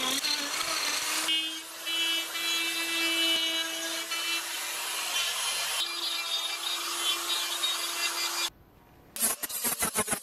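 Handheld electric rotary grinder running steadily with a carbide burr cutting into a wooden carving: a grinding rasp over the motor's steady whine. After a brief break near the end, a sanding wheel on the grinder scuffs the wood in quick, uneven pulses.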